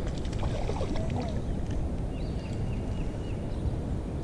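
Steady low rumble of wind and water around a small fishing boat while a hooked trout is played on a spinning rod, with a short run of sharp clicks in the first second or so and a high, short repeated phrase heard twice.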